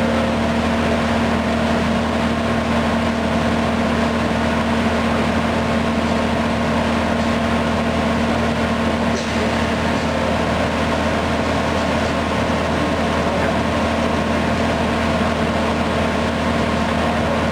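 1989 Finn-Power TP 3015 CNC turret punch running under power: a steady machine hum with a constant whine and no punching strokes.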